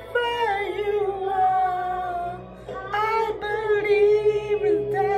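A woman singing, holding long notes that slide between pitches, with a short break about halfway before the next phrase.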